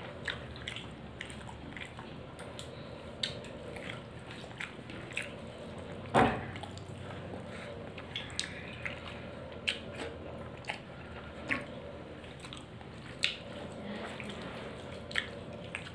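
Someone eating by hand: mouth sounds of chewing and wet lip smacks, with the squish of fingers mixing rice and dal on a plate, heard as a scatter of short clicks. One louder knock comes about six seconds in.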